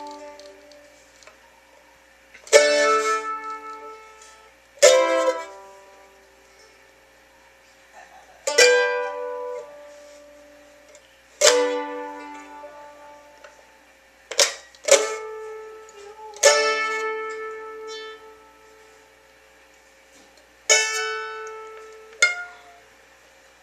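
Mandolin strummed slowly, one chord at a time, each chord left to ring and fade before the next. About nine strums, two of them coming close together midway.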